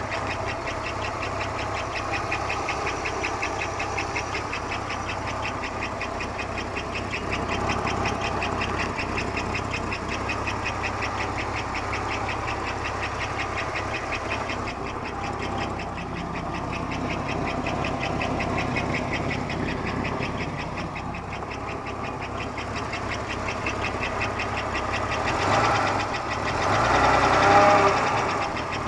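Buick 3800 V6 (3.8 L) of a 1991 Park Avenue running with a weird loud noise, a fast, even rhythm over the engine sound. It gets louder twice near the end. The noise starts right after cranking whether the engine is hot or cold, and does not change with the accessory belt removed, so it is not from the belt-driven accessories.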